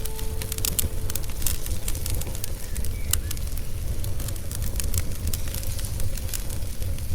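Wood fire crackling, with many sharp, irregular pops over a steady low rumble.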